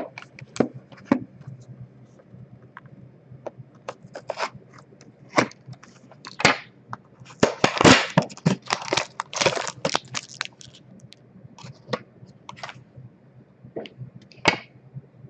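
Plastic shrink wrap being torn and stripped off a sealed trading card box: irregular crackling, tearing and crinkling, busiest about halfway through.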